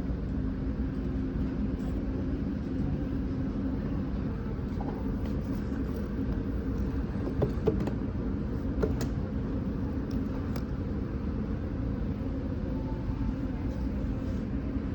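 Steady rumble of a car running, with a couple of low held tones, and a few light clicks about halfway through.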